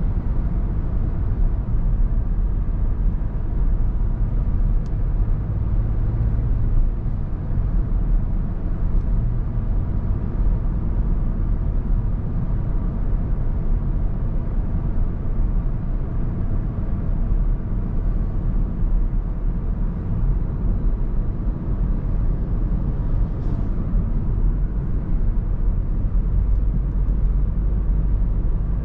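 2024 VW T-Roc with its 1.5 TSI four-cylinder turbo petrol engine driving at a steady speed: a constant low drone of road, tyre and engine noise.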